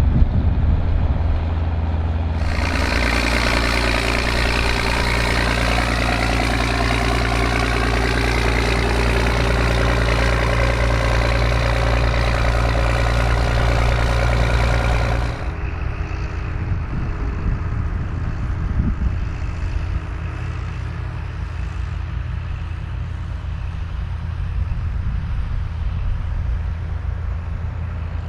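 John Deere tractor engines running steadily while ploughing. The sound changes abruptly about two seconds in and again about halfway through, as one tractor recording gives way to another.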